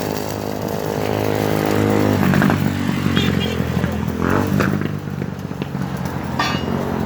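A motor vehicle engine running with a steady drone that grows louder over the first two seconds or so, with brief indistinct voices over it.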